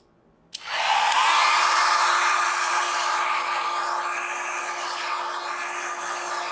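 A handheld electric dryer switches on about half a second in and runs steadily, its air rushing with a constant motor hum, as it blows across wet alcohol ink.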